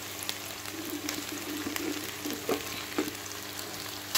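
Sliced onions sizzling and crackling in hot oil in a metal pot as they are stirred with a wooden spatula. A few light knocks and scrapes of the spatula against the pot come near the end.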